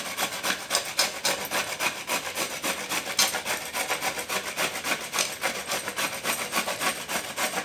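Peeled bottle gourd (lauki) being grated on a stainless-steel hand grater: a fast, even run of rasping strokes as the gourd is pushed back and forth over the blades.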